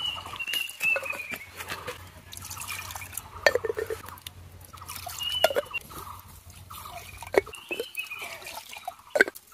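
Water poured from a cup into small clay pots, splashing and dripping, with a few sharp clinks as clay lids are set on the pots.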